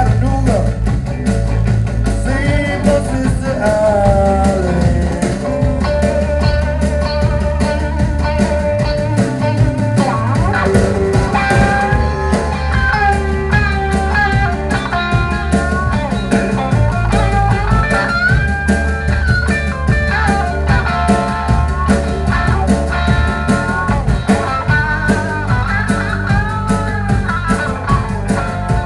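Live blues-rock trio playing: an electric guitar lead line with bent, sliding notes over bass guitar and a full drum kit.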